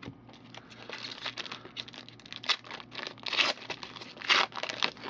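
Shiny foil wrapper of an Upper Deck Spectrum baseball card pack crinkling and tearing as it is pulled open by hand. It comes as an irregular run of crackles, loudest about three and a half and four and a half seconds in.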